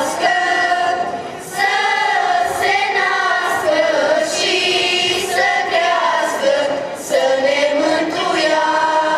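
A choir of girls and young women singing a Romanian Christmas carol (colindă) in long, held phrases, with two short breaks for breath.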